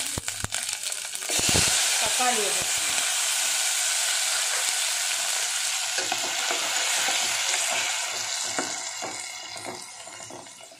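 Chopped tomatoes going into hot oil with cumin seeds and green chillies in a stainless steel pot: a sudden loud sizzle about a second in, steady for several seconds, then slowly dying down near the end as a spoon stirs through them. A few light clinks come just before the sizzle starts.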